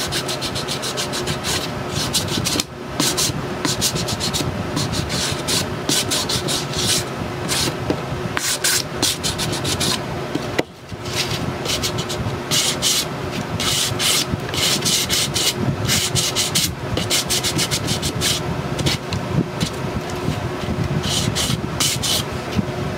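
Sanding block rubbed in quick back-and-forth strokes over the painted edge of a chipboard box, a steady scratchy rasp. It is sanding back the antiquing cream to distress the finish. The rasp breaks off briefly about three seconds in and again near halfway.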